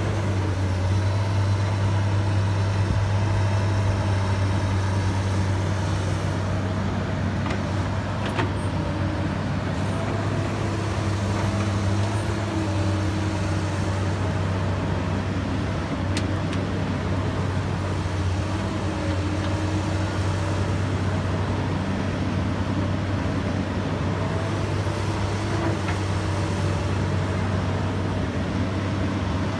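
Komatsu PC200 crawler excavator's six-cylinder diesel engine running steadily under load while the boom and arm move, a constant low drone with higher tones that rise and fall slightly.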